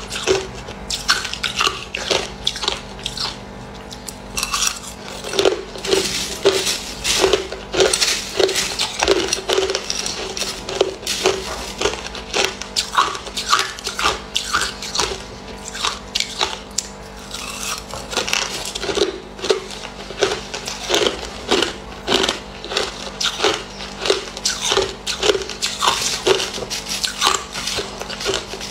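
Crushed ice being bitten and chewed close up: a steady run of sharp, crisp crunches, about two a second, mixed with the spoon scooping ice in the bowl.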